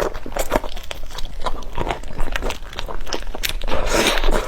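Close-miked chewing and biting of crunchy food, a string of short, irregular crunches, with a louder hiss near the end.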